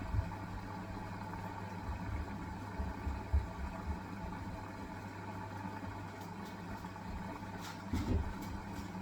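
Hisense washing machine running on its wool cycle: a steady motor hum with scattered low thuds, a few light clicks and a heavier thud near the end.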